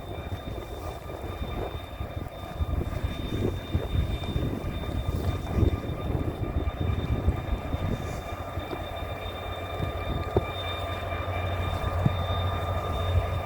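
HŽ series 2044 diesel-electric locomotive running, a steady high whine over a low rumble, with a couple of sharp knocks in the second half.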